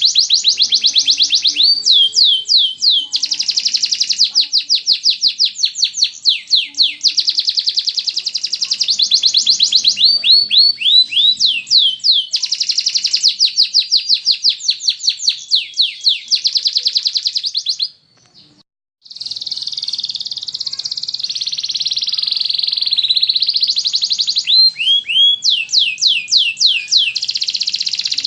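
Domestic canary singing long, fast trills of rapidly repeated high notes, changing speed from phrase to phrase with some downward-sweeping notes, broken once by a short silence about two-thirds through.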